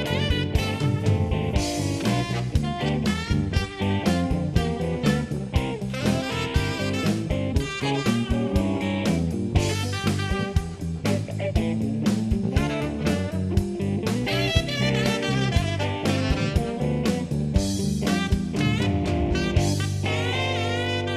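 Instrumental closing theme music with a steady beat, ending on a chord held and left to ring near the end.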